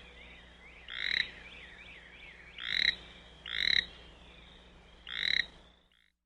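American toad croaking: four short calls, each swelling in loudness and then cutting off, spaced about a second or more apart. Fainter, quicker chirping calls sound behind them in the first half.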